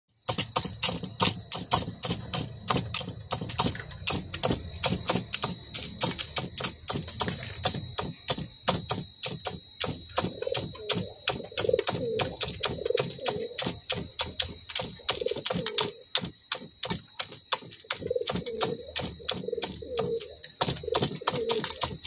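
Domestic pigeons pecking grain from a metal feed tray: a rapid, irregular run of sharp beak clicks against the metal. From about ten seconds in, pigeons coo repeatedly under the pecking.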